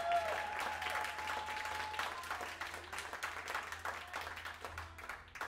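Applause with hands clapping, and a long high whoop held over it for the first two seconds; the clapping thins out and stops near the end.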